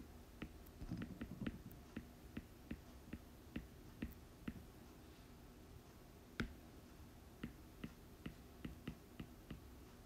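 Faint, irregular clicks of a stylus tip tapping on a tablet's glass screen during handwriting, about two to four taps a second, with one sharper tap about six seconds in.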